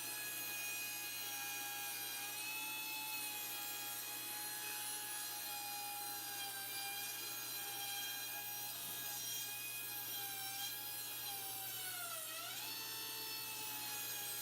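Power tool running with a steady whine, its pitch dipping briefly and recovering about twelve seconds in, as it slows under load.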